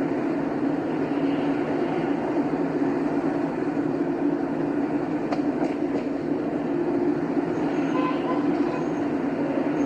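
Steady road and engine noise of a car cruising on a highway, a constant low rumble without letup.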